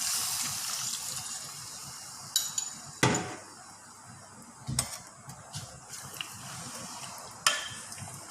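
Metal cookware and utensils clinking and knocking, about six sharp strikes with the loudest, heavier knock about three seconds in, after a hiss that fades over the first two seconds.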